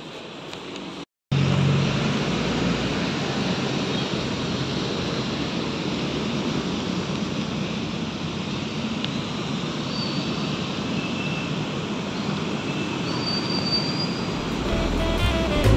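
Steady vehicle-like rushing noise that starts abruptly about a second in, after a brief moment of silence, with a few faint short high chirps over it; music comes in near the end.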